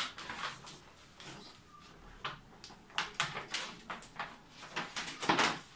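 Short, irregular scrapes and rustles of hands handling a plastic playpen panel while fixing stickers onto it, the loudest near the end.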